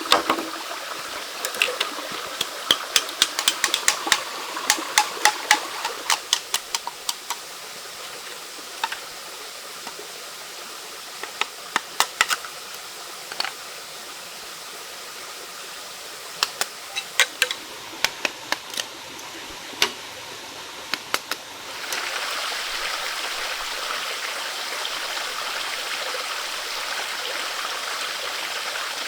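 Quick series of sharp taps or knocks in clusters, over a low steady hiss. About two-thirds of the way through, louder running water takes over.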